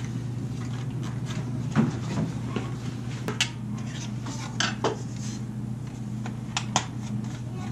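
Thin sheet-metal windscreen form and small hand tools being handled on a workbench: a string of sharp metallic clinks and knocks, over a steady low hum.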